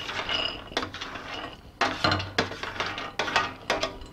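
Roasted almonds scraped with a spatula off a metal baking sheet, sliding and rattling into a glass bowl: a rustle at first, then a run of sharp clicks and clatters as the nuts drop and the sheet knocks.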